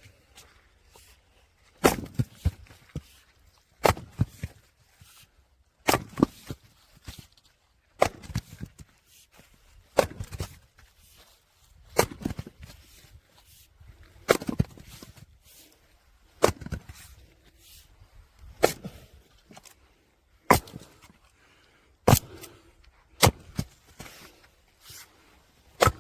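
Firewood being split: a sharp crack of splitting wood about every two seconds, each followed by a short clatter of knocks as the pieces fall.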